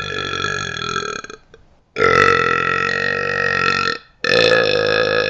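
A man belching loudly on command, one long belch after another with short gaps between: one ends about a second and a half in, a full belch of about two seconds follows, and a third begins near the end. Each holds a steady pitch.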